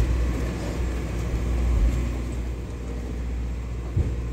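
Sightseeing boat's engine running with a steady low hum. A low thump comes about four seconds in.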